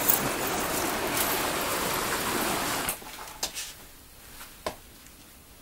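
Steady rush of flowing river water, which cuts off abruptly about three seconds in, leaving a much quieter background with a few light clicks and knocks.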